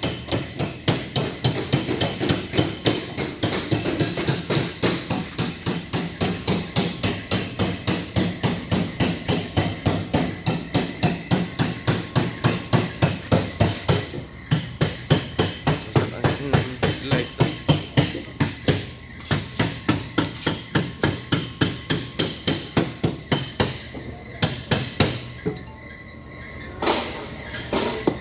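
Hammer blows on car body sheet metal, a fast, even run of about three strikes a second during dent repair, with a short break about halfway and sparser strikes near the end.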